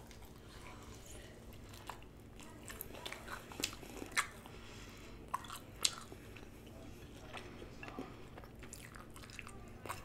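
Close-miked biting and chewing of sauced chicken wings, with sharp short mouth clicks scattered throughout and a few louder ones around the middle.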